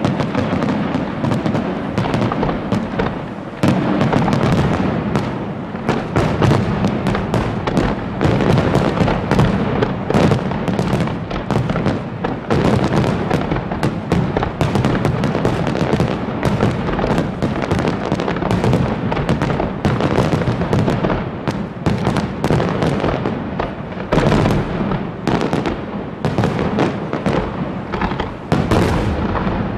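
Fireworks display: aerial shells bursting and crackling in a dense, continuous barrage, with bangs coming several times a second.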